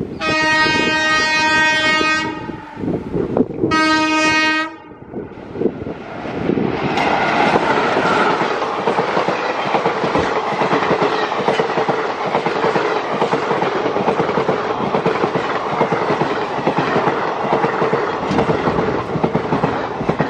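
WAP-4 electric locomotive sounding its horn twice, a blast of about two seconds then a shorter one of about a second. Then the passenger train's coaches roll past close by with a steady loud rumble and clickety-clack of wheels over the rail joints.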